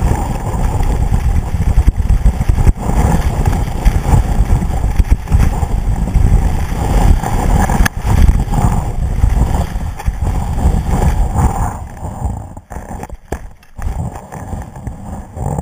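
Wind buffeting the microphone of a boot-mounted action camera, with skis hissing and scraping over packed snow during a fast run. It dies down from about twelve seconds in as the skier slows to a stop.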